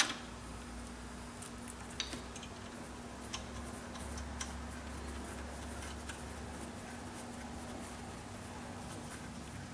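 A few scattered light metallic clicks and ticks, spaced a second or more apart, as small fuel line fittings are handled and threaded on by hand, over a steady low hum.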